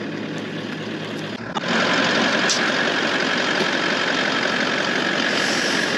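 Four-wheel drive's engine idling steadily. About one and a half seconds in the sound jumps suddenly louder and fuller, with a steady high whine over it.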